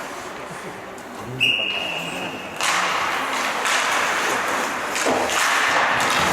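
Referee's whistle in an ice hockey game: one steady blast of about a second, starting about a second and a half in, signalling a stop in play. A louder, even rushing noise from the rink takes over right after it.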